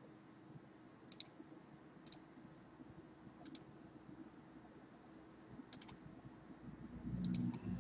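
Sparse clicks of a computer mouse, single and double, a second or so apart, with a quick cluster of clicks near the end. A low steady hum comes in about seven seconds in and is the loudest sound.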